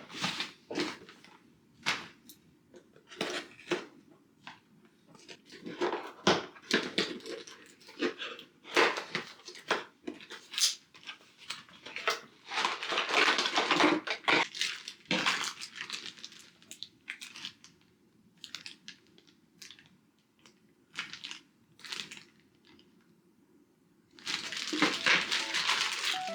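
Things being handled at close range: irregular light clicks and knocks mixed with rustling, crinkling stretches, busiest in the middle and again near the end.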